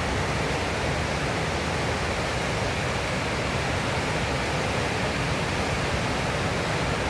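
Whitewater river rapid rushing steadily: a constant, even noise of fast water churning over a standing wave.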